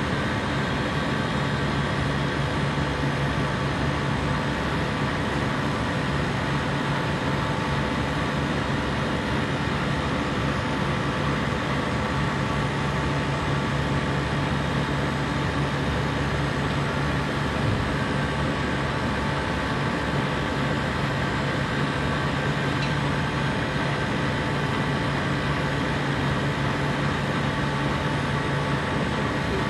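A compressor running steadily: an unchanging mechanical hum with a low drone under a wide, even noise.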